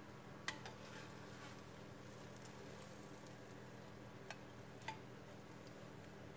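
A few faint clicks and light scrapes of a spatula against a nonstick frying pan as an egg omelette is slid out onto a plate, over a low steady hum and hiss.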